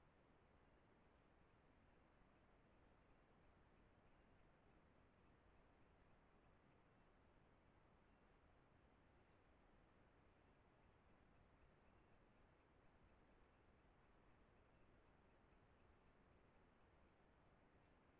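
Very faint tropical forest ambience: a steady high tone with two long runs of short, evenly repeated high chirps, about four a second. The second run, starting about eleven seconds in, is the stronger.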